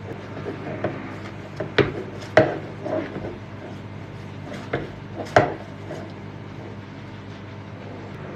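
A handful of sharp knocks and clatters of kitchen utensils and dishes being handled, the loudest about two seconds in and again about five seconds in, over a steady hum.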